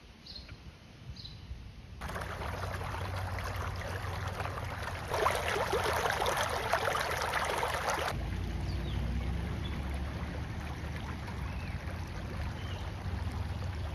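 Water from a broken water main welling up through the street and rushing along the gutter, a dense splashing rush that is loudest from about five to eight seconds in and stops abruptly. A few bird chirps come at the start, and a low steady rumble follows the water.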